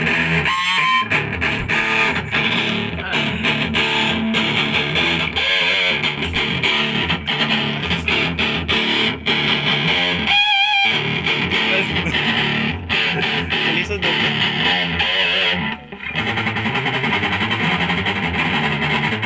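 Thomson Les Paul-style electric guitar in drop C tuning, played through high-gain distortion: heavy riffing, with a held note wavering in vibrato about a second in and again about ten seconds in, and a brief break just before the riff resumes near the end.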